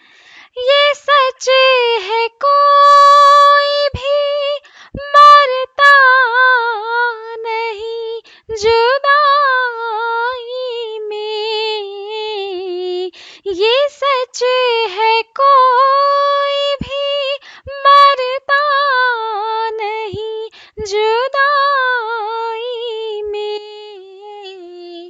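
A woman singing a ghazal solo, without accompaniment, in phrases of held, wavering and ornamented notes separated by short breaths.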